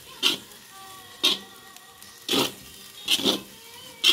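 Spatula stirring and tossing fried rice in a pan: five quick scraping strokes about a second apart, each a short brushing scrape of rice and utensil against the pan.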